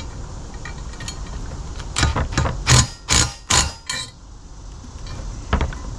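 Hand work on bumper mounting hardware: a quick run of about six sharp knocks and clanks, starting about two seconds in and lasting under two seconds.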